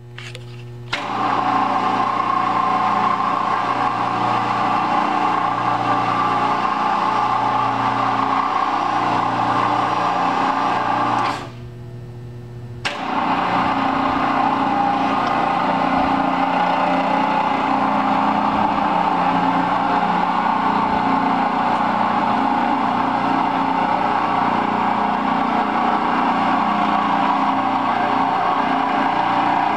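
Electric gear motor of a Ransome 1000 lb welding positioner running steadily as the pendant control drives the table. It stops briefly about twelve seconds in and starts again, over a steady low hum.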